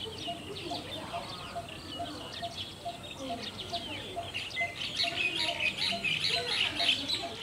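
Morning bird chorus: many small birds chirping and twittering, growing louder about halfway through. Under it a low short note repeats steadily, about three times a second.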